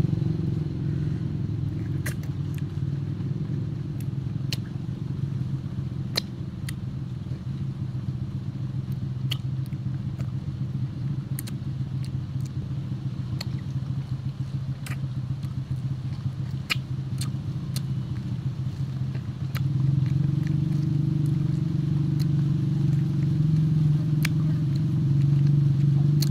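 A steady low motor hum that gets louder about 20 seconds in, with scattered sharp clicks over it.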